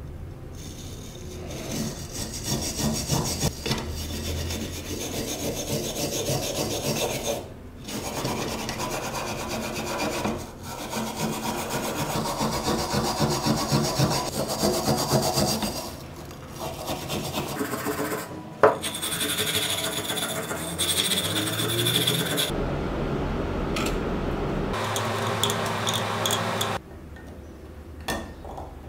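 Small hand wire brush scrubbing rust off a rusty metal lock in rapid back-and-forth strokes, broken by a few short pauses and one sharp click about two-thirds of the way through. The scrubbing stops near the end.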